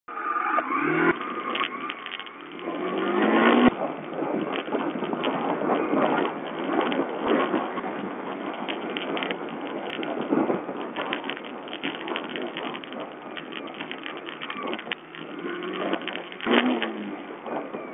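Sherco 125 4T enduro motorcycle's single-cylinder four-stroke engine under way on a rough trail, revving up and easing off; the revs climb about a second in, again from about three seconds in, and once more near the end, with frequent short knocks from the bike jolting over the ground. Recorded on board through a low-quality watch camera, so the sound is thin and muffled.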